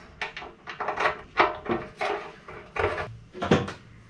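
Irregular knocks and clicks, a few a second, of a bare metal cafe racer fuel tank with its fuel petcock being handled and set onto a motorcycle frame.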